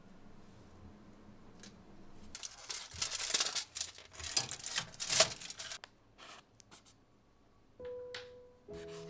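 Crinkling and rustling of packaging being handled, loud and crackly for about three seconds, followed by a few light clicks. Soft music with held notes begins near the end.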